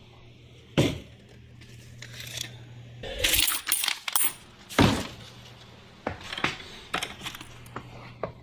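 Loose quarters clinking and clattering in several separate bursts, with the loudest strikes about a second in and near five seconds, as the coins are handled and dropped into a bucket.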